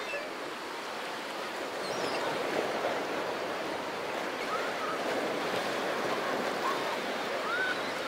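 Small Black Sea waves washing steadily onto a pebble beach, with a few faint short calls in the second half.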